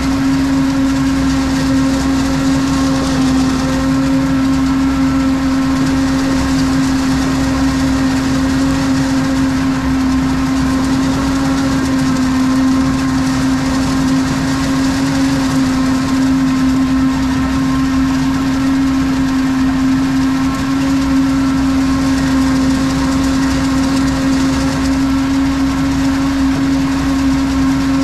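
Steady engine noise heard inside the cab of a Tatra Phoenix 460 6x6 truck driving slowly beside a working forage harvester. A strong hum holds one pitch, with fainter steady tones above it and no change in engine speed.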